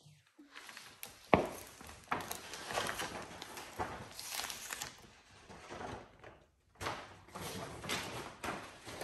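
Large vinyl decal sheet and its paper backing rustling and crinkling in irregular bursts as they are handled and laid onto the wet hood, with a sharp tap about a second in.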